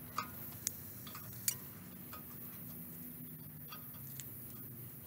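Small metallic clicks and taps from hand tools working at the cotter pin in the outer tie rod end's nut on a truck's steering knuckle, a few sharp ones in the first second and a half and fainter ones after.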